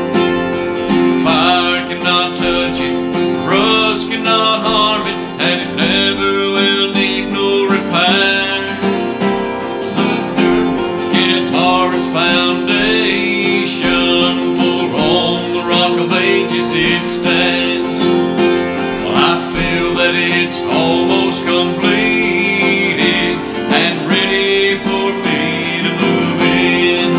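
Acoustic guitar strumming with a keyboard holding sustained chords: an instrumental break in a country-style gospel song.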